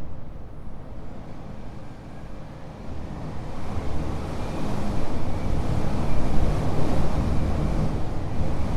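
High wind gusting through a stone castle turret, a rushing noise with heavy low rumble. It eases a little in the first few seconds, then a gust builds from about three seconds in and stays strong.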